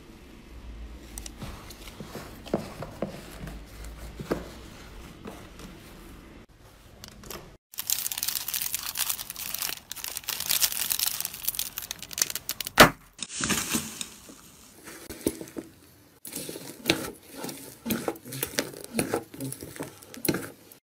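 Slime stretched and squished by hand, with soft sticky clicks. Then several seconds of loud crinkling as a hand squeezes a green metallic foil pouch, ending in a sharp snap. After that come quick wet clicks and pops as slime is pressed and punched in a bowl.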